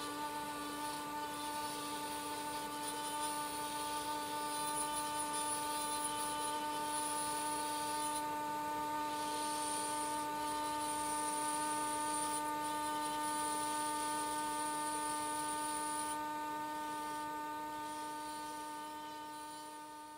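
Dental lab micromotor handpiece running at steady speed with an even hum and whine, its bur grinding a stone study model; a higher grinding hiss comes and goes as the bur touches and leaves the stone. The sound fades out near the end.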